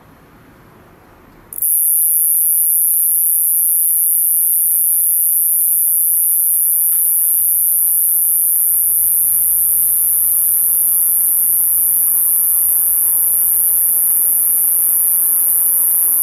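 Japanese cone-headed katydid (Euconocephalus thunbergi) singing: one unbroken, very high-pitched, steady buzzing note that starts suddenly about a second and a half in and holds without a break.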